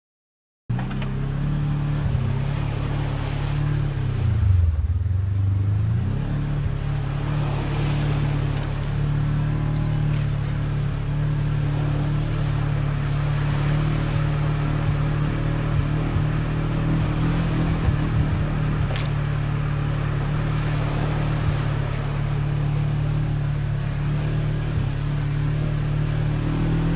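Off-road vehicle engine running steadily as it drives, starting abruptly just under a second in; the engine note drops for a moment about five seconds in and then comes back up.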